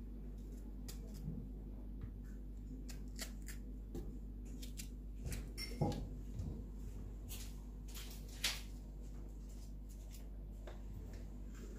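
Small clicks and taps of a knife slicing strawberries and of the pieces dropping into a plastic blender jar, with a louder knock about six seconds in and a sharp tap about eight and a half seconds in, over a steady low hum.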